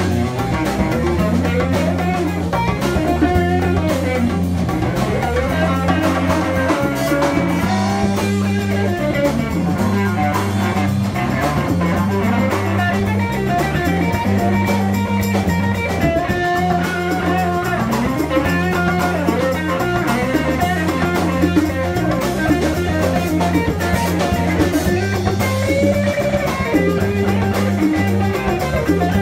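Live rock band playing an instrumental passage: electric guitar lines over a low, repeating bass riff, with drum kit and congas.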